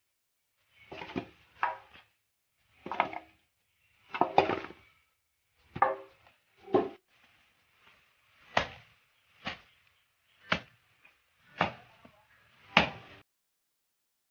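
A curved machete chopping a goat head on a wooden block: about a dozen sharp blows, roughly one a second, stopping shortly before the end.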